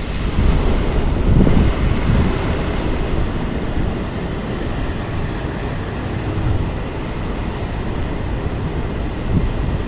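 Wind buffeting the microphone: a low rumble that swells and eases in gusts, loudest in the first couple of seconds.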